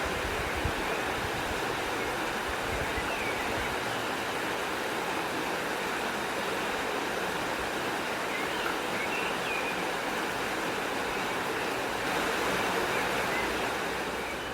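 River water flowing steadily, with a few faint bird chirps scattered over it.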